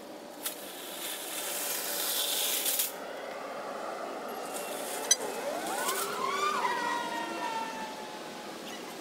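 Metal shopping carts rolling and rattling over asphalt for about two seconds, followed by a click and then a wailing tone that rises and then slowly falls.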